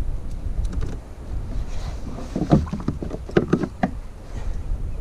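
A cluster of hollow knocks and rattles from fishing tackle being handled against a kayak's hull, over a steady low wind rumble on the microphone.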